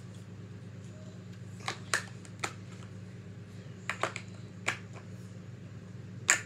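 Wooden colored pencils clicking against each other and the floor as they are picked up and set down: about eight short, sharp clicks, some in quick pairs, over a steady low hum.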